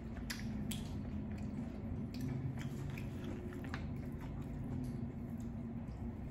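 A person biting and chewing hard-shell tacos close to the microphone, with irregular crisp crunches of the fried shells among wetter chewing, over a steady low hum.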